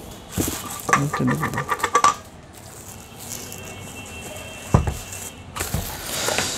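Thin plastic bag and wrap rustling as a mini projector is handled and wrapped. There is a single sharp knock about halfway through, and a brief stretch of a voice near the start.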